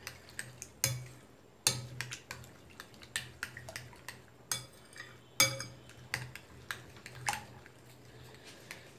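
A utensil stirring a wet egg, onion and green chilli mixture in a cut-glass bowl, clinking and scraping against the glass in irregular strokes about once or twice a second, some with a short ring.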